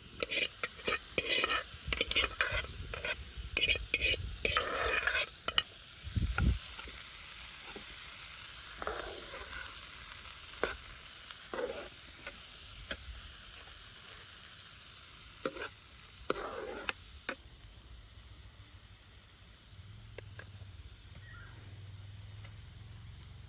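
Boiled kudya pods being stirred in a pan of frying onion, garlic and masala: quick scraping and knocking against the pan for the first six seconds or so, then a steady sizzle with an occasional scrape, slowly getting quieter.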